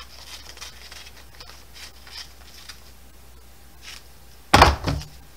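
Quiet rustling and light clicks of fabric and paper-backed appliqué scraps being handled on a table, then a sudden louder burst of handling noise near the end.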